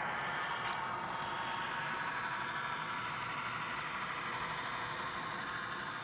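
HO scale model freight train running past on its track: a steady mechanical running noise as the diesel locomotive and its covered hopper cars roll by.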